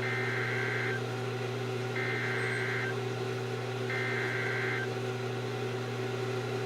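NOAA Weather Radio EAS/SAME digital header: three separate bursts of the raspy two-tone data squawk, each about a second long and a second apart, over a steady low radio hum. This coded header is what sets off weather-alert radios at the start of a new warning.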